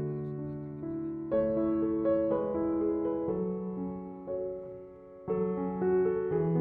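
Background piano music: soft, slow chords and a gentle melody.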